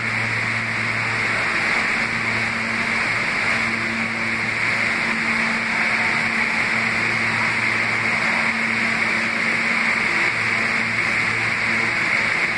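New York City Subway R160 train on the track beside the platform: a steady rumble and hiss, with a low hum that drops out and returns a few times.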